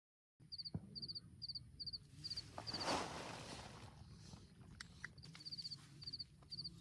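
High chirping of an insect, such as a cricket, in short clusters of pulses repeating about twice a second. A brief swell of rushing noise comes about three seconds in.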